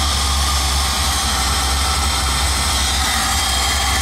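GM LS-series V8 swapped into a Datsun 280Z, idling steadily with a deep, even rumble and a faint steady high whine over it.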